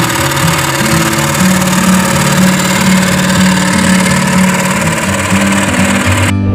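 Small petrol engine of a wooden river boat running steadily under way; the engine noise cuts off suddenly near the end.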